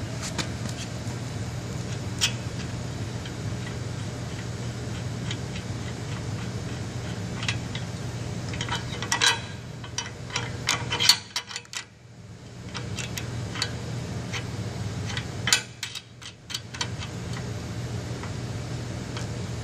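Metal clicks and clinks of bolt and wing-nut hardware being handled while a wheel bracket is fitted to a lathe, heaviest about nine to eleven seconds in and again around fifteen seconds, over a steady low hum. The hum drops away briefly twice near the middle.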